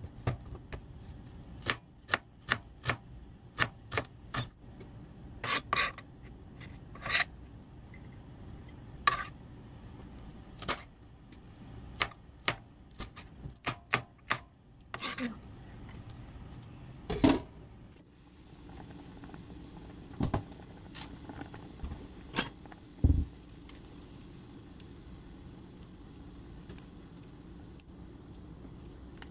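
Quick sharp clicks of kitchen scissors snipping a green chili into pieces. About eighteen seconds in this gives way to the steady bubbling of a pot of boiling anchovy stock, with a few knocks of tongs against the pot as the anchovies are lifted out.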